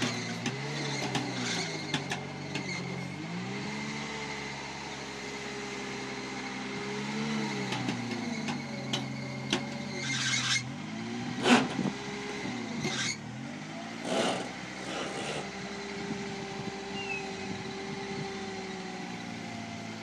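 Turbocharged, fuel-injected Toyota 20R four-cylinder engine in a rock crawler, revving up and down repeatedly under load as the truck climbs steep rock. Several sharp knocks and short scraping bursts come in the middle of the climb, the loudest about halfway through.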